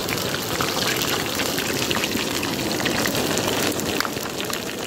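Chicken lollipop pieces deep-frying in a pan of hot oil on their second fry: a steady sizzle with many small crackles.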